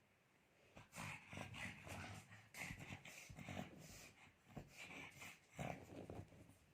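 Pug snoring in her sleep: a run of faint, rough breaths, one every half second to a second, starting about a second in.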